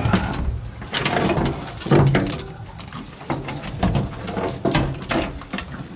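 Handling noise on an aluminium boat deck: a mesh catch bag rustling and a crayfish knocking and scraping on the checker plate as it is tipped out, a run of irregular knocks and clatters.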